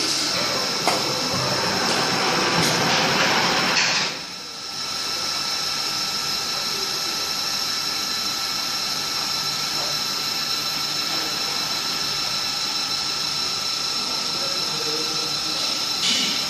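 Cast-iron-frame CNC milling machine running with a steady high-pitched whine. A rough cutting noise over the first four seconds stops abruptly, leaving the whine alone.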